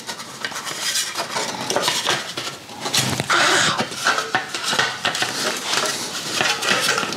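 Metal exhaust parts and tools clinking, rattling and scraping against each other as they are handled, with irregular clicks throughout.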